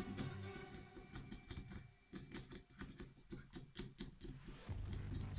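Small screwdriver tip scraping by hand along the knurled grooves of a metal satellite-dish rotator axle, making a quick, uneven run of small scratchy ticks of metal on metal as old residue is picked out of the shallow grooves.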